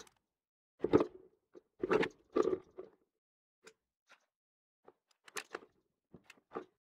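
Handling noises from a 3D-printed plastic fixture with bearing blocks and loose steel balls being turned in the hand: clusters of knocks and rattles in the first three seconds, then scattered small clicks, with a screwdriver going to the screws near the end.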